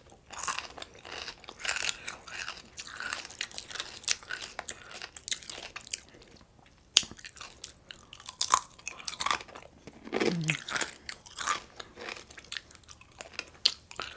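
Close-miked mouth sounds of a person eating breakfast food: irregular crunchy bites and chewing. A brief vocal sound falls in pitch about ten seconds in.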